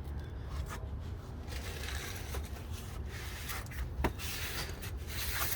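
Brake parts being handled and fitted back into place by hand: rubbing and scraping of metal, with one sharp click about four seconds in.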